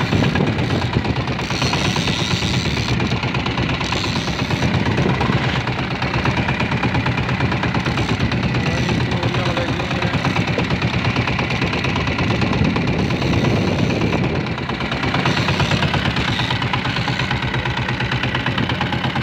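Fishing boat's engine running steadily at trolling speed, a rapid even beat of low pulses with the hiss of the sea around it.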